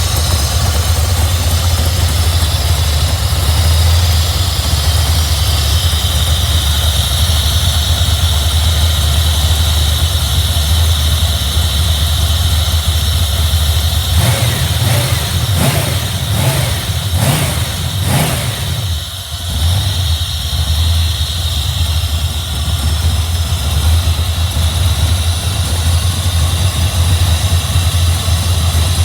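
Chevrolet LT1 5.7-litre V8, with ported heads, intake and throttle body, idling. It has not yet been tuned for its modifications. Around the middle it is blipped up about four times in quick succession, then drops back to idle, with a steady high whine alongside.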